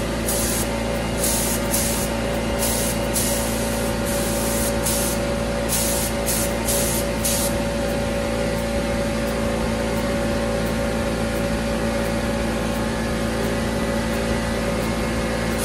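Gravity-feed spray gun spraying paint onto a small-block Chevy engine, its air hiss coming in a string of short trigger bursts for the first seven or so seconds and then stopping. A steady machine hum runs underneath.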